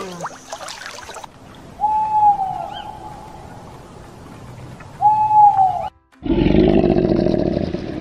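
An owl hooting twice, each hoot a single note of about a second that rises slightly and falls away, about three seconds apart. After a short break, a louder low rumbling sound with a rapid pulse starts about six seconds in.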